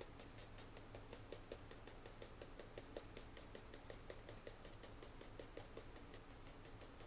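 Graphite pencil tapping lightly and rapidly on drawing paper, a fast even run of soft ticks, to make short grass sprigs.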